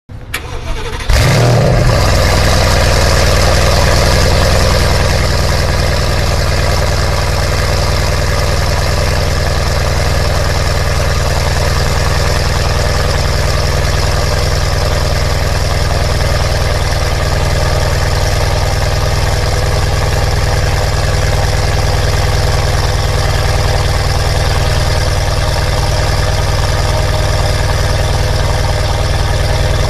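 Mercedes-AMG C63 V8 cold start through an Armytrix valvetronic aftermarket exhaust: the starter cranks, and the engine catches about a second in with a loud flare. It runs at a loud high idle, easing slightly after about five seconds to a steady idle.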